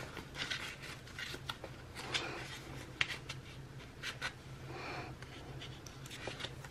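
Pen writing a word on a small paper planner label: short scratchy strokes with brief pauses between them.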